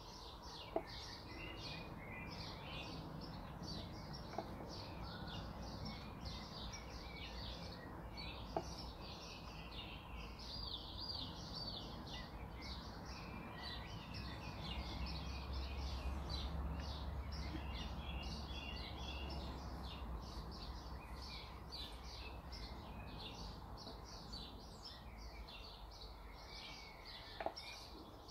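Many birds chirping continuously in the background over a low steady hum, with a few faint taps.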